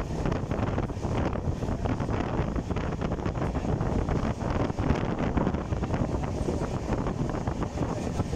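Wind buffeting the microphone over the steady rumble of a fast-moving vehicle, recorded at an open window.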